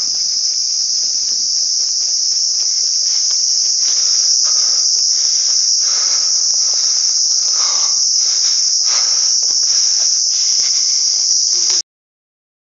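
Dense insect chorus, crickets by their sound, a steady high-pitched shrilling with no break that cuts off abruptly near the end.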